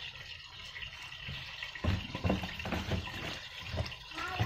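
Pot of soup boiling with a steady hiss and bubbling, while handfuls of raw mustard greens are pressed down into it, rustling and knocking against the pot from about halfway through.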